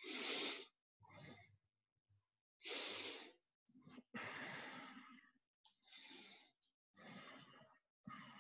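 A person breathing close to the microphone, a series of soft breaths in and out about every second or so, with the first and third breaths the loudest.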